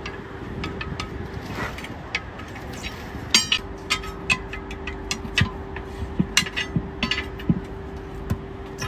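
Metal tools knocking and clinking in a run of sharp, irregular taps during truck tire repair work, over a steady hum. The taps come thicker from about three seconds in.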